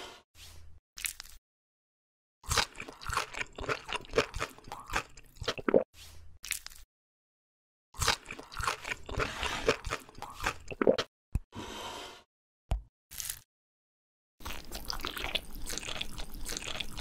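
ASMR eating sound effects: crunching bites and chewing in several bursts that start and stop abruptly, with dead silence between them. Near the end comes a longer, steady stretch of rustling noise.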